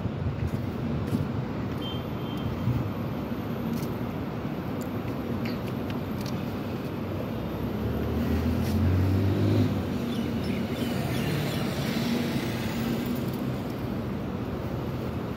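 Steady city road traffic noise, a low rumble that grows louder for a couple of seconds about eight seconds in.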